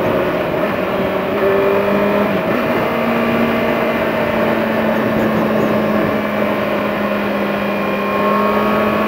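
2012 Kawasaki ZX-6R's inline-four engine running at a steady cruise, its pitch stepping up slightly about three seconds in, under heavy wind rush from riding at road speed.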